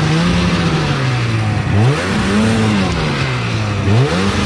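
Snowmobile engine, a twenty-year-old machine, revving in surges over a steady hiss. Its pitch climbs sharply, holds, then sags, with fresh sharp rises about two seconds and four seconds in.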